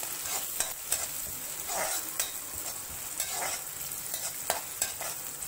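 Chopped onions and curry leaves sizzling in hot oil in an aluminium kadai as they are sautéed, with a spatula stirring and scraping against the pan in irregular clicks.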